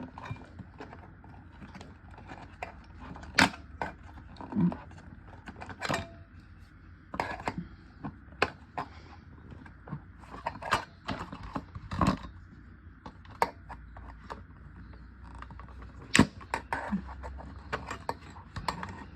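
Irregular clicks and knocks of a cutter working on the small screws and metal and plastic casing of a car CD player as it is taken apart, with sharp ticks now and then and long gaps between them.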